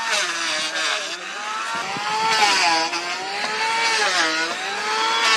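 Handheld electric circular saw cutting through a thick wooden plank. Its motor whine sags in pitch several times as the blade bites into the wood, then picks back up.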